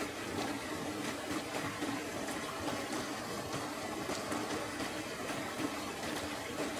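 Steady rush of flowing river water, with faint small clicks scattered through it.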